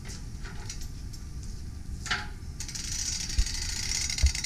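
Hand-wound S70 spring starter being rewound: rapid fine clicking begins about halfway through and carries on, with two dull knocks near the end, over a steady low rumble.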